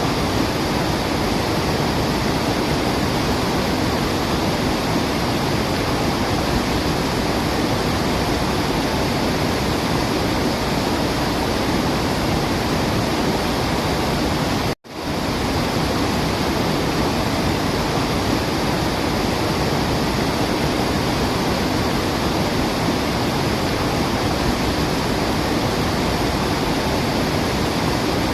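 Waterfall: a steady, even rush of falling water. It cuts out to silence for an instant about halfway through, then carries on unchanged.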